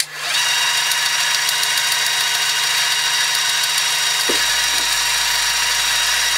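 Deckel FP1 milling machine spindle starting up with a brief rising whine, then running steadily with a 10 mm end mill in it. A low hum joins about four seconds in.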